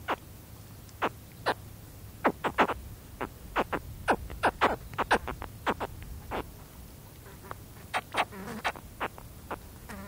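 Baby spectacled caimans giving short, sharp contact calls close up: about twenty in quick succession, thickest in the middle and thinning out towards the end, over faint wind.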